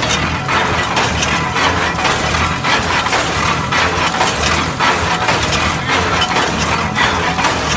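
Keystone cable-tool drilling rig running: a steady engine hum under a rhythmic clanking and rattling of gears, pulleys and cable, roughly once a second, as the drilling tools are lifted and dropped.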